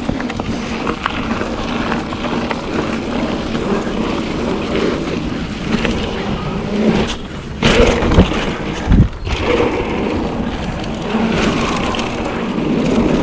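Trek Fuel EX mountain bike being ridden along a dirt trail: steady tyre and chain noise with the bike rattling over the ground, and wind on the GoPro's microphone. A few sharp knocks a little past halfway, as the bike hits bumps.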